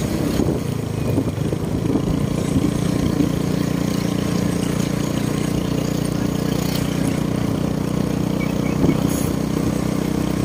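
Engine of the vehicle carrying the camera, running steadily at an even cruise along a road; it settles into a constant hum about two seconds in.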